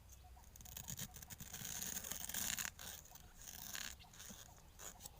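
Irregular scraping and rustling in dry leaf litter and soil with small clicks, loudest about one to three seconds in, as a wild bamboo shoot is dug out of the ground.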